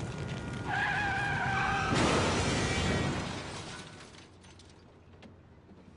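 Car tyres screeching for about a second, then a loud crash of a car collision that fades away over the next two seconds.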